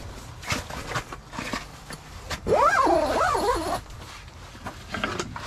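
A drawn-out wordless voice sound whose pitch rises and falls twice, lasting about a second, amid short rustles and clicks of gear being handled.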